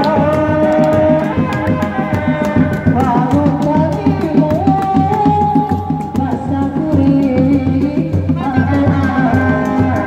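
Sundanese seni reak ensemble playing: dog-dog frame drums beating a dense, steady rhythm under a held melody line that steps between a few pitches.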